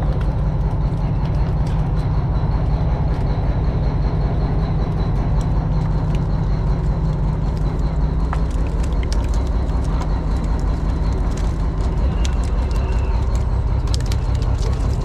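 Fishing boat's engine running steadily with a low drone, while hose water splashes and pours over plastic baskets of fish on the deck, with scattered sharper splashes and knocks.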